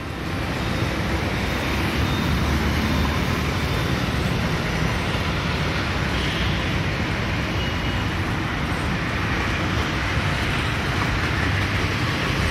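Steady outdoor traffic noise: an even rumbling hiss with no distinct events.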